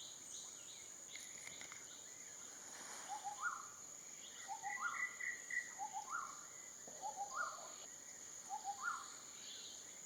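A bird calls about five times, each phrase a short low double whistle followed by a higher rising note, about a second and a half apart, over a steady high-pitched insect drone in the forest.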